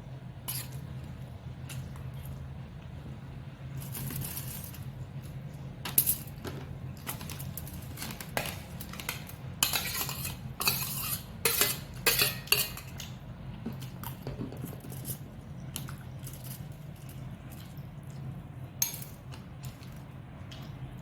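A spoon or fork clinking and scraping against a plate or bowl while eating, in scattered clinks that come thickest about halfway through, over a steady low hum.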